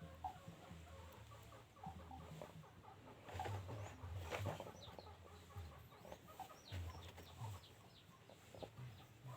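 Chicken clucking in short, soft calls, with a louder cluster of calls about three and a half to four and a half seconds in.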